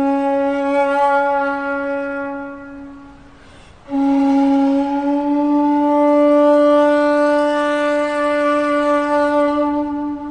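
尺八 (shakuhachi), an end-blown bamboo flute, playing two long held notes. The first fades away about three seconds in; after a brief breath the second enters about four seconds in, bends slightly up in pitch and is held, thinning out near the end.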